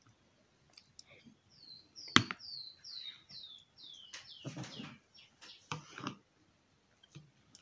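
A bird calling a quick run of about seven high, falling notes, starting a little after a second in and ending around four seconds in, with a sharp click among them.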